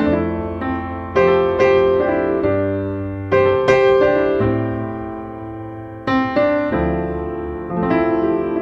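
Background piano music: calm chords and melody notes struck about once a second and left to ring and fade, over held bass notes.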